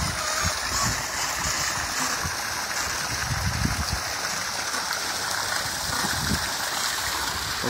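A jet of water splashing steadily into open water, a continuous rushing hiss.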